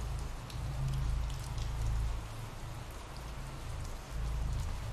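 Steady ambient rain: an even hiss of rainfall with scattered drops ticking, over a low rumble that swells and dips.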